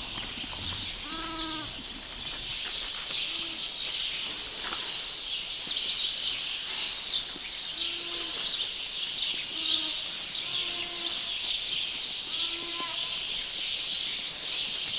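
Sheep bleating in a barn: about seven short, low calls spaced a second or two apart, over a steady high hiss.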